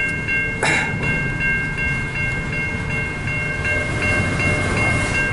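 Freight train cars rolling slowly through a grade crossing with a low rumble, while the crossing bell rings steadily at about three strokes a second. One sharp clank sounds about a second in.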